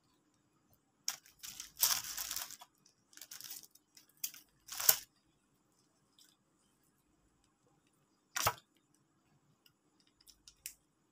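Plastic sauce sachet being torn open and crinkled: several short noisy rips in the first five seconds, then a single sharp click about eight seconds in.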